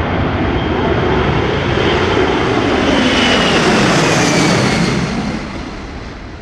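C-17A Globemaster's four turbofan engines passing low overhead: a loud jet roar with a high whine that builds to its loudest about four seconds in, then the whine drops in pitch and the roar fades as it flies away.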